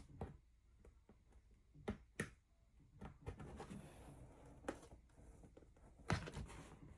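Faint, irregular clicks, taps and soft scraping of a corrugated plastic sign board being trimmed and handled by hand.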